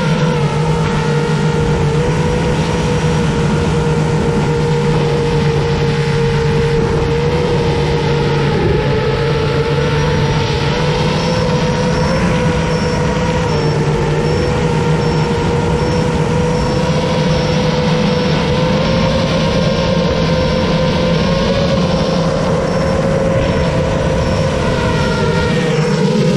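FPV racing quadcopter's brushless motors and propellers whining steadily as heard from its onboard camera, the pitch wavering slightly with throttle.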